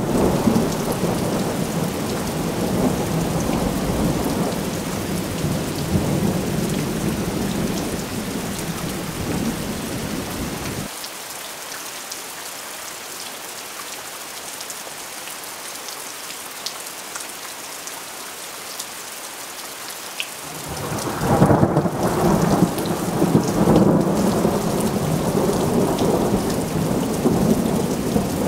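Thunder rumbling over steady rain. The rumble dies away about eleven seconds in, leaving only the hiss of rain. A new peal breaks in sharply about two-thirds of the way through and rolls on to the end.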